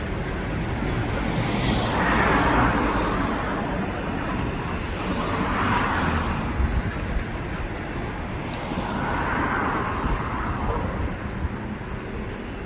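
Road traffic outdoors: a steady low rumble with three vehicles passing, each swelling up and fading away, about two seconds, six seconds and nine seconds in.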